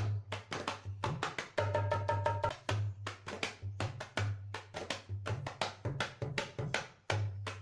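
Background music with a fast hand-drum beat: quick sharp strokes over repeated deep bass booms, and a brief held tone about two seconds in.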